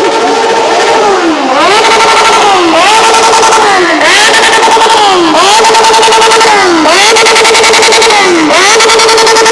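Yamaha MT-09's three-cylinder engine through an F2R aftermarket exhaust, revved hard over and over: it holds a steady high pitch, drops briefly and climbs straight back about once a second. Very loud.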